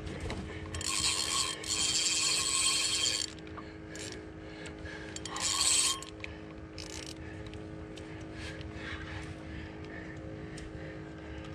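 Spinning reel's drag buzzing as a hooked fish runs and pulls line off it: one long run of about two and a half seconds, then a shorter burst near the middle.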